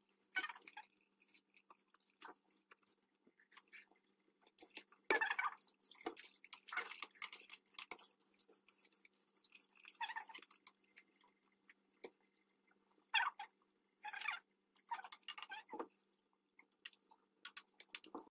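Hands working wet boiled yufka dough sheets and crumbled white cheese in a metal baking tray: scattered short wet handling and dripping sounds. A faint steady hum runs underneath.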